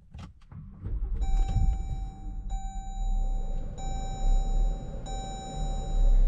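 A few clicks, then about a second in a low rumble starts and a car's electronic warning chime begins, one steady tone repeating about every 1.3 seconds.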